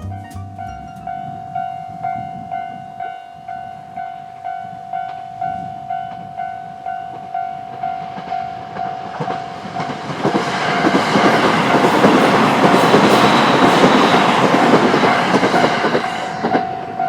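Japanese level-crossing alarm ringing its pulsed warning tone about twice a second. About ten seconds in, a train passes over the crossing, loud, and begins to fade near the end while the alarm keeps ringing.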